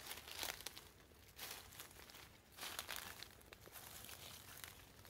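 Faint footsteps crunching and rustling through dry leaf litter and bamboo undergrowth, with a few sharp clicks of twigs.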